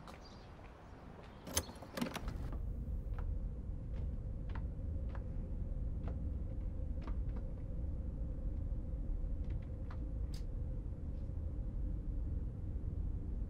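A few sharp knocks about one and a half to two seconds in, then a steady low rumbling hum with a faint steady tone above it and scattered small clicks.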